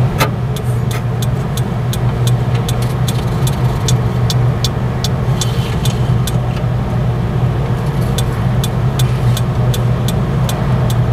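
Spark ignition system of a Model 8550 thermoelectric generator (TEG) ticking, about three or four sparks a second, over a steady low hum. This is the ignition sequence running on test with the pressure switch terminals jumpered.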